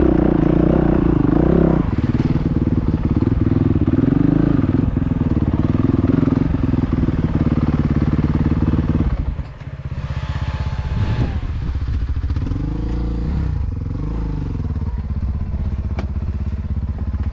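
Dirt bike engine running at low revs as the bike creeps over rocky ground, then dropping to idle about nine seconds in, its revs rising and falling a few times after that.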